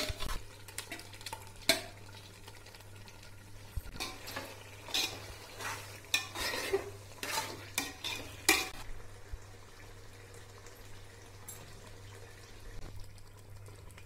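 A metal spatula stirring marinated chicken into a thick onion-tomato masala in a metal pot, with short scrapes and knocks against the pot. The strokes come thickest in the first nine seconds, then die down.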